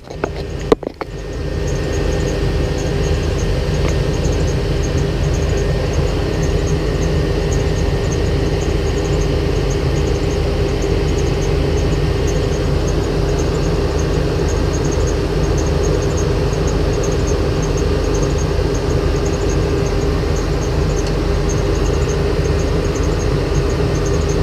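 Two short knocks, then a vehicle engine idling steadily from about a second and a half in, with a constant hum.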